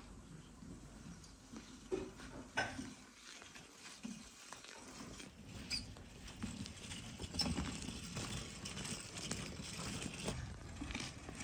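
Faint scattered knocks and rattles, getting busier about halfway through, from a wheelbarrow loaded with watermelons being pushed along.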